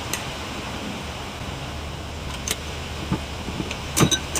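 Wind rumbling steadily on the microphone, with a few sharp metal clicks of a hand tool working at the snap ring of an automotive AC compressor's clutch pulley, the loudest about four seconds in.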